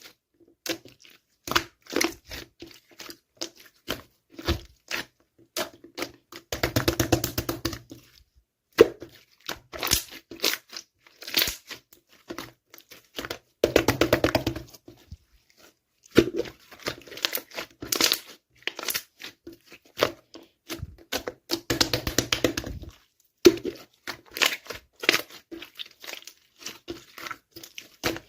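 Slime being squished and stretched by hand: irregular clicks and pops, with three longer runs of dense crackling about 7, 14 and 22 seconds in.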